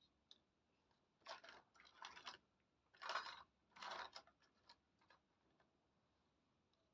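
Small toy kitchen pieces being handled: about four short bursts of scraping and rattling in the middle, with a few faint clicks around them.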